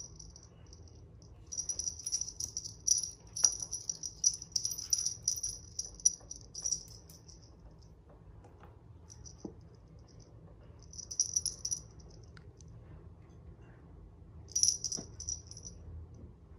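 A small bell on a cat's wand teaser toy jingles in three bursts as the toy is shaken: a long run starting a second or two in, a short one about eleven seconds in, and another near the end.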